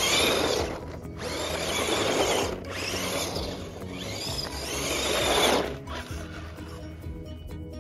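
Tamiya G6-01 Konghead 6x6 RC truck driving over crusty snow, its electric drivetrain whining and tyres scrubbing in four bursts of throttle that stop about six seconds in. Background music underneath.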